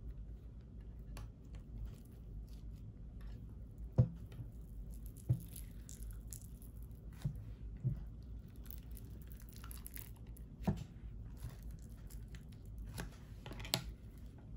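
Clear slime mixed with lipstick, pressed and scraped with a plastic scraper and then stretched out: several sharp sticky pops and clicks, the loudest about four seconds in, with a fine crackling as the slime pulls and tears near the end.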